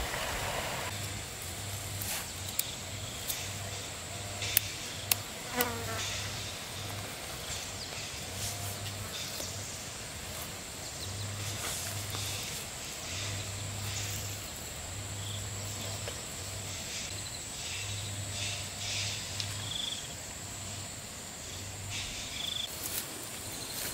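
Insects buzzing and trilling steadily, with a low buzz that comes and goes in short stretches, scattered light clicks and a few brief chirps.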